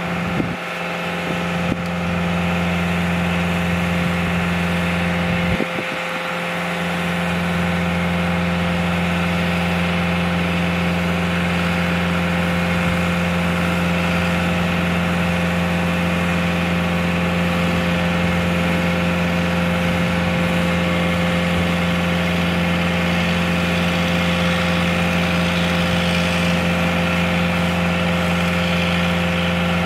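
An engine running at a steady idle: a constant low hum that holds one pitch and settles about seven seconds in.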